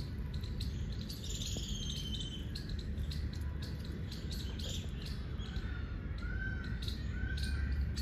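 Small birds chirping and calling in short scattered notes over a low steady rumble, with a longer curved call a second or two in and a run of short even chirps about two-thirds of the way through.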